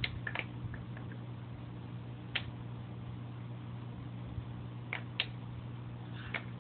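A steady low electrical hum, with a few sharp clicks scattered through it.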